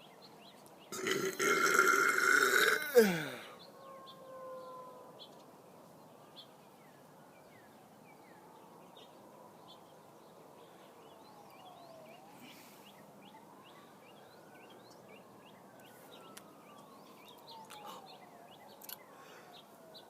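A long, loud human burp lasting about two seconds, starting about a second in and dropping in pitch as it ends.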